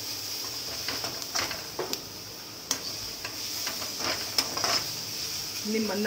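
A metal spatula stirring and scraping sliced onion, capsicum and carrot around an aluminium kadhai, with irregular scrapes and taps against the pan over a steady sizzle of the vegetables sautéing in oil.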